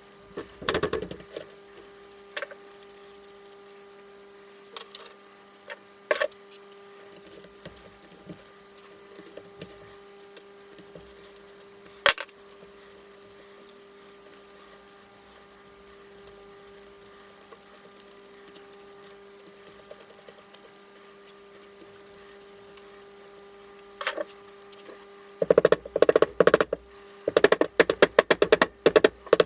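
Hand tools clinking and knocking on metal parts of a Honda CB450 engine during disassembly. Near the end comes a run of rapid ratchet clicking, the loudest part.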